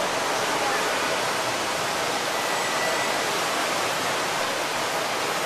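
Rain falling steadily on a street and pavement: an even, constant hiss.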